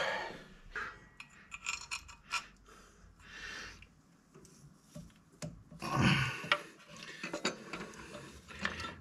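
Metal tools and engine parts clinking, tapping and rubbing as they are handled by hand around the engine's front pulleys, in irregular light clicks, with a louder burst of noise about six seconds in.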